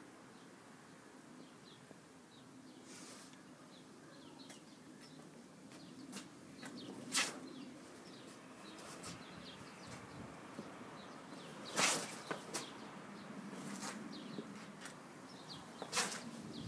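Garden ambience with faint bird chirps, broken by three short, loud rustling scuffs from two people grappling, about seven seconds in, twelve seconds in and near the end.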